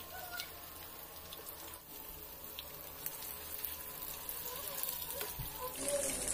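Breaded chicken cutlets shallow-frying in hot oil in a pan: a steady sizzle with scattered small crackles. It gets louder near the end as the cutlets are turned over into the oil.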